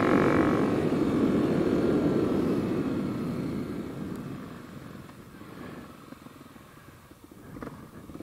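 Kawasaki KLX 300's single-cylinder four-stroke engine through a carbon Delkevic slip-on exhaust, its note falling as the throttle comes off. The sound fades over about five seconds and stays low, with a couple of faint knocks near the end.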